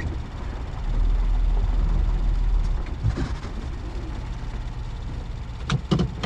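A vehicle driving slowly along a dirt campground road: a steady low rumble of engine and tyres, with two short knocks near the end.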